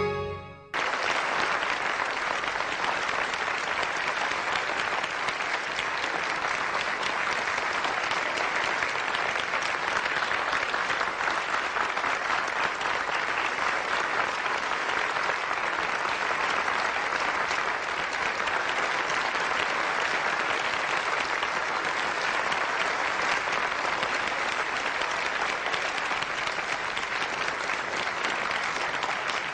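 Audience applauding steadily. The clapping starts abruptly just under a second in.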